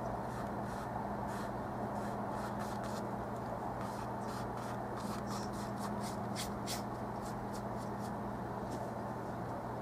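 Oil-paint brush dabbing and dragging across the canvas: short, irregular scratchy strokes, thickest around the middle, over a steady low electrical hum.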